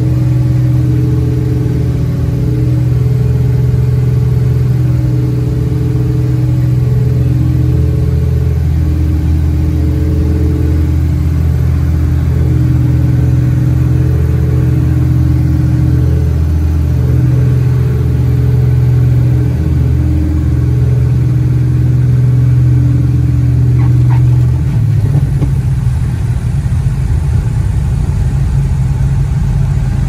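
Aero Commander L-26B's twin piston engines heard from inside the cockpit on the landing approach: a loud, steady drone with a slow, regular waver. At about 24 seconds the even drone gives way to a rougher rumble as power comes back for the landing.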